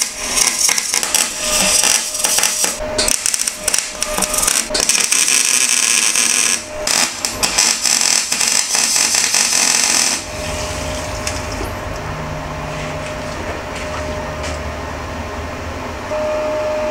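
MIG welder tacking steel baffle fillets into an oil sump, crackling and spitting in several bursts for about ten seconds. The welding then stops, and a steady mechanical hum with a faint held whine is left.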